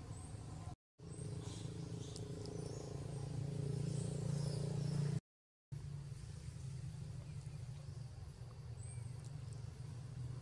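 Outdoor ambience with a steady low hum that swells for a few seconds, with faint high bird chirps. The sound cuts out abruptly twice, about a second in and about halfway through.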